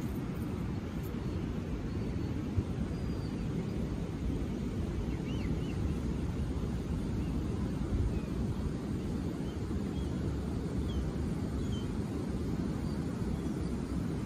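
Outdoor wind buffeting the microphone, a steady low rumble, with a few faint bird chirps scattered through.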